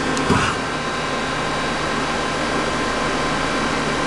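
Tsugami PL3 CNC gang tool lathe under power, giving a steady mechanical hum with several steady whining tones. A brief click and a short falling tone come about a third of a second in.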